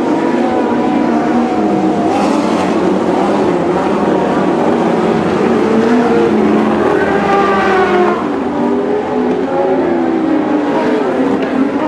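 Several Lightning Sprint race car engines running hard at once as the pack laps the dirt oval, their pitches rising and falling as they go through the turns. About seven seconds in, one engine's pitch climbs as it accelerates.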